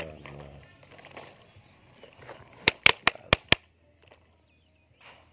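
Sharp plastic clicks and knocks from a toy excavator being handled: one click at the start, then a quick run of five clicks about three seconds in.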